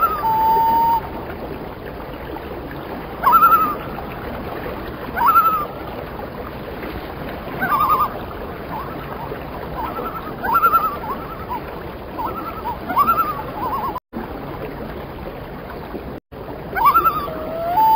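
Common loon calls: rising yodel-like notes repeated every couple of seconds, a run of short quick notes in the middle, and a long wail that rises and then holds level near the end, over a steady watery background.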